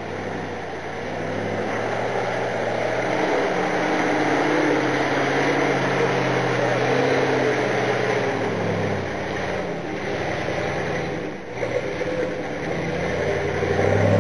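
ZIL-131 6x6 army truck's engine running under load as the truck drives through deep mud, getting louder as it comes close. It eases off briefly about eleven seconds in, then picks up again.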